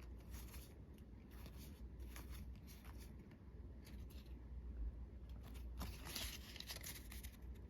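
Magic: The Gathering cards and pack wrapping being handled: scattered soft scrapes and rustles of card stock, with a longer rustle about six seconds in.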